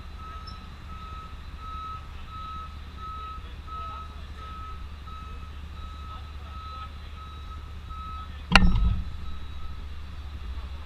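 A vehicle's reversing alarm beeping steadily, about two beeps a second, over a low steady engine rumble. The beeping stops about eight seconds in and a single loud bang follows at once.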